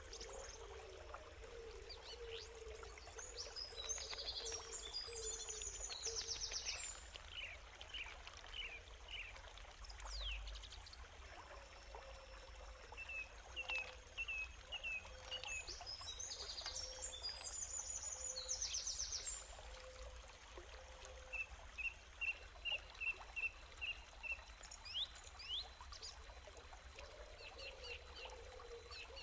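Wild birds singing: a long, complex warbling song comes twice, and between and after these runs of short, evenly spaced chirps, about three a second, repeat on one pitch.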